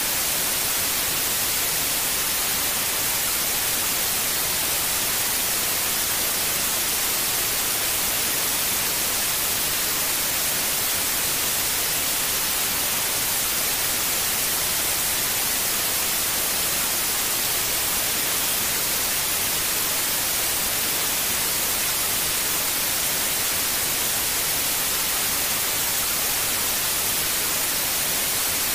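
Steady white noise: an even, unbroken hiss, heaviest in the high end, holding one constant level.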